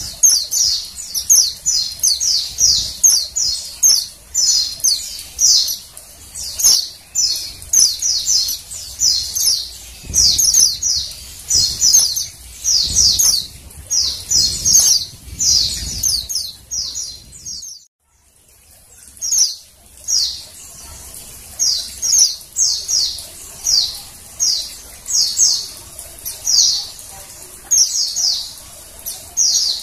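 Female white-eye (pleci) calling: a rapid, steady series of short high chirps, about two a second. The calls break off for about a second a little past halfway, then resume.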